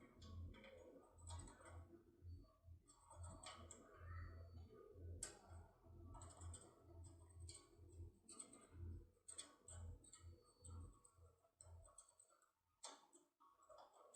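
Faint, irregular clicking of a lockpicking tool being worked inside a lock cylinder, over a low hum that stops about twelve seconds in.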